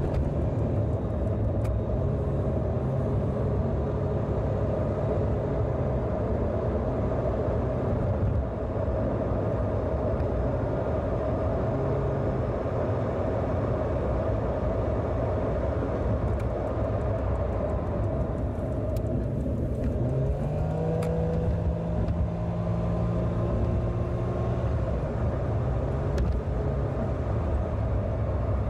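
A car being driven, with steady road rumble and the engine's hum. About twenty seconds in, the engine note rises and then holds higher.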